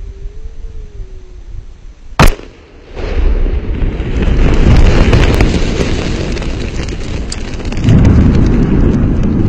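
A WWII bomb being detonated on a sand beach: one sharp bang about two seconds in, followed by a long, deep rumble that swells again near the end, with scattered sharp ticks over it.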